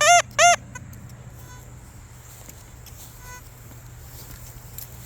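Metal detector target tone: two loud beeps that rise and fall in pitch as the coil is swept back and forth over a target, stopping about half a second in, then faint single beeps about a second and a half and three seconds in, over a low steady hum.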